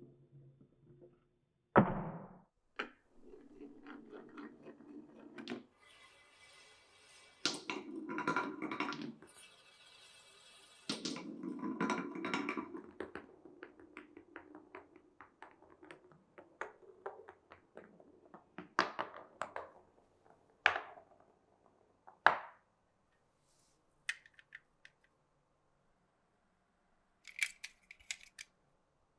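Glass marbles running down a wooden marble run: a sharp knock about two seconds in, several stretches of rolling rumble along the tracks, then scattered clacks and taps as they drop and hit the wooden pieces.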